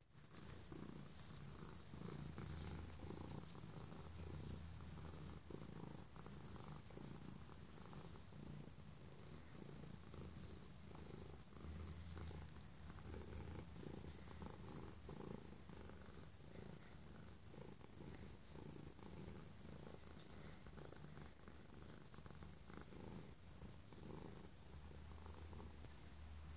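Domestic tabby cat purring continuously while being stroked, a low rumble that swells and eases in stretches. The purr is the sign of a content cat enjoying being petted.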